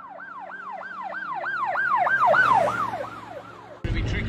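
Intro sound effect: a siren-like whooping tone, about three sweeps a second, each jumping up and sliding down in pitch, over low held synth notes; it swells and then fades. Near the end it cuts suddenly to loud wind and boat noise.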